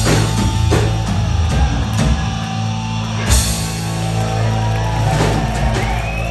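Live rock band, electric guitars, bass and drum kit, holding a loud ringing chord punctuated by a few drum and cymbal crashes: the song's closing flourish.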